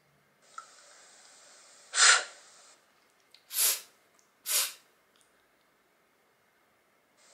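A voice pronouncing the French consonant [f] on its own as a short voiceless 'fff', three times, the last two about a second apart.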